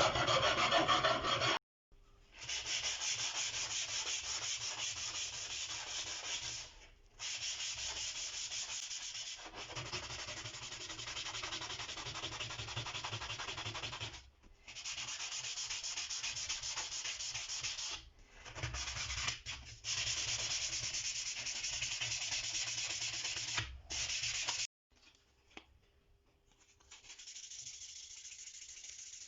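Steel chisel being rubbed against an abrasive, a steady scratchy sanding sound in long runs broken by short pauses. A louder stretch cuts off abruptly about two seconds in, and the rubbing is quieter near the end.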